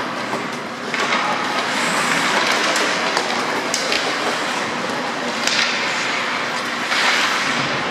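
Ice hockey play: skates scraping on the ice and several sharp clacks of sticks on the puck, over a steady rink noise.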